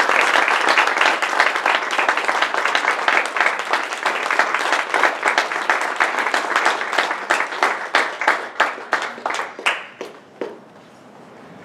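Audience applauding: dense applause at first that thins into scattered individual claps and dies away about ten seconds in.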